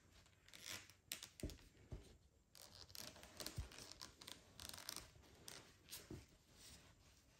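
Faint, intermittent rustling and scraping of T-shirt yarn being drawn through crocheted stitches with a large plastic crochet hook.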